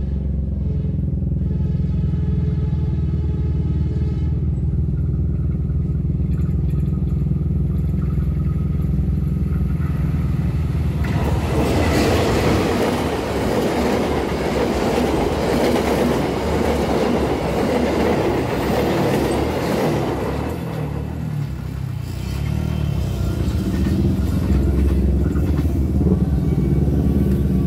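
Diesel-hauled passenger train passing at speed. For the first ten seconds the locomotive's diesel engine drones, then from about eleven seconds the coaches rush past for some ten seconds with loud wheel-on-rail noise. A low engine drone comes back near the end as the noise dies away.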